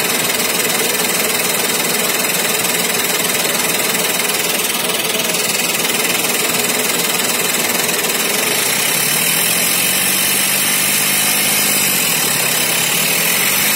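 Chevrolet Beat's turbo-diesel engine idling with a steady clatter, heard at the open turbocharger inlet, and a faint tone that drops and rises again in the second half. The turbocharger is seized and its compressor wheel does not spin, which the mechanic blames for the car's loss of pickup.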